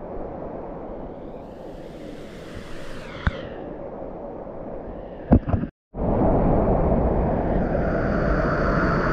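Creek water flowing around a kayak as it is paddled through a calm pool, with a few sharp knocks. After a cut about six seconds in, the louder, steady rush of whitewater pouring down a bedrock cascade.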